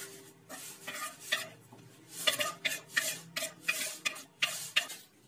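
Finely chopped spinach being scraped off a wooden cutting board into a steel bowl of cut potatoes. It makes a run of short, irregular scraping and rustling strokes, busiest in the second half.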